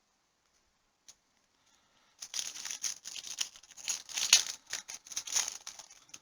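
Plastic wrapper of a trading-card pack being torn open and crinkled, a dense crackling that starts about two seconds in and stops just before the end. A single faint click comes about a second in.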